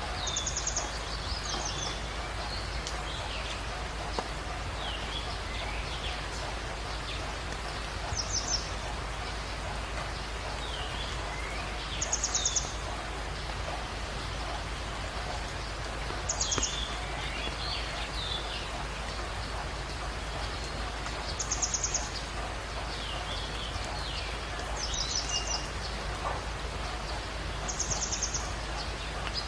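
Birds calling over a steady background hiss: one bird repeats a short, very fast, high-pitched trill every few seconds, about seven times, while other birds add scattered chirps and whistles.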